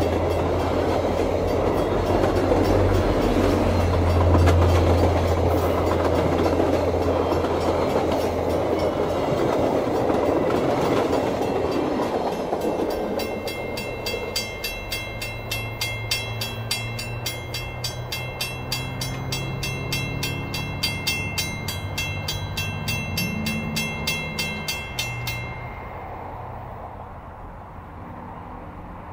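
VIA Rail passenger train of LRC cars and F40PH-2D locomotives rolling past at close range: a loud rumble of wheels on rail over a steady low hum, fading as the train recedes. From about halfway a level-crossing bell rings rapidly and evenly over the fading train, then stops abruptly near the end.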